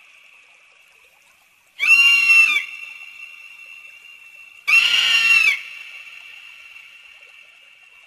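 Eagle scream sound effect: two loud, harsh, high raptor screams about three seconds apart, each under a second long and trailing off in a long ringing echo.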